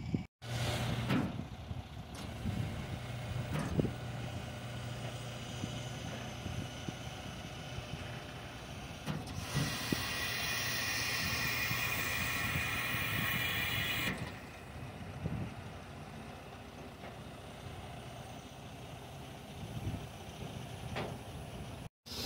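Heavy truck's diesel engine running steadily, with a long hiss of air lasting about four seconds around the middle and a few knocks.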